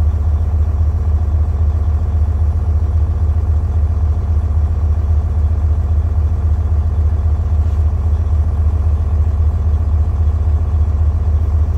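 Tractor-trailer's diesel engine idling, a deep, even drone heard from inside the cab that holds steady throughout.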